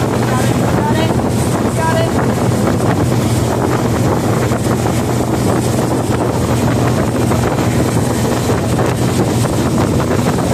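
Motorboat engine running steadily at towing speed, with wind buffeting the microphone and water rushing in the wake.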